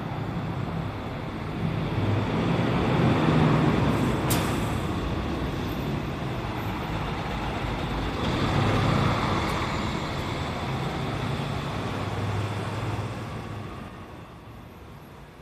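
Guideway bus engine running as the bus drives, with road noise. It grows louder about three seconds in and again about nine seconds in, then fades near the end. There is a single sharp click about four seconds in.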